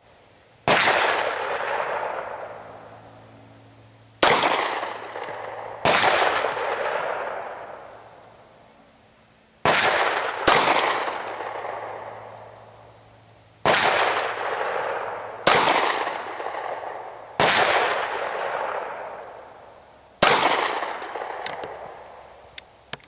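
Nine single pistol shots fired slowly, a second to four seconds apart, each a sharp crack followed by a long echo that dies away over two to three seconds.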